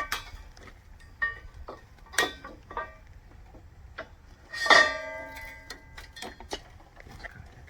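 Steel sawmill parts clanking against each other as they are pulled from the packing: a series of metal knocks, each ringing briefly. The loudest clang comes about halfway through, and its ring dies away over about a second.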